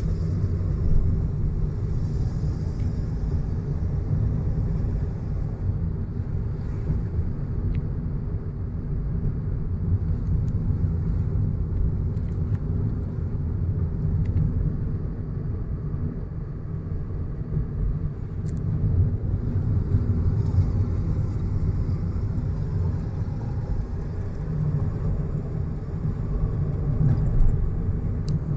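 A car driving along a road, with a steady low rumble of road and engine noise.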